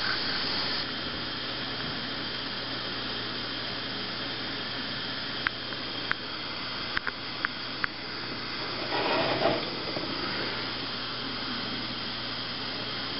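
Akron Lamp Diamond brand pressure mantle lamp burning with a steady hiss. A few sharp ticks come about halfway through, and a brief louder rush of noise follows about nine seconds in.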